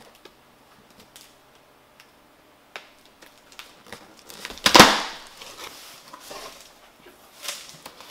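A blade slicing packing tape on a cardboard box, with small scattered clicks and scrapes. About five seconds in comes a loud rip of tape and cardboard as the box flaps are pulled apart, followed by softer cardboard scraping and rustling.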